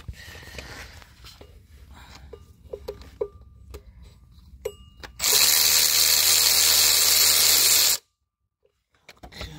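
Cordless power tool with a socket on an extension runs for about three seconds, spinning out an oil filter housing bolt, then cuts off suddenly; before it, a few light metallic clicks as the socket is fitted on the bolt.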